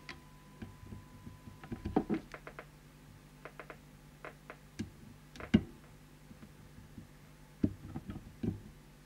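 Scattered light clicks and knocks from a trimming tool and fingers working inside an open CB radio's chassis while a preset potentiometer is adjusted; the loudest knock comes about halfway through. A steady low hum runs underneath, and a faint steady high tone stops about two seconds in.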